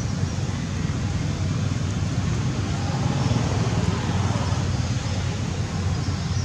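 Steady low background rumble, with a few faint high chirps about three seconds in.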